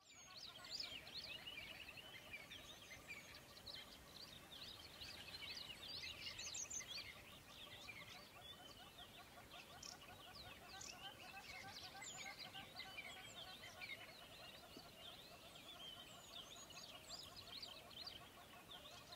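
A dense chorus of many small birds chirping and twittering without a break, heard faintly.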